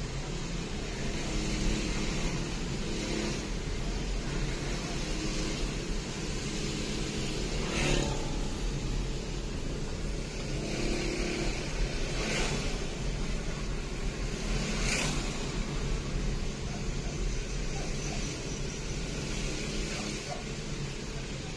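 Steady road noise heard from inside a car under tow, with the running engine of the kulong-kulong motorcycle rig pulling it. A few brief louder rushes of noise come now and then.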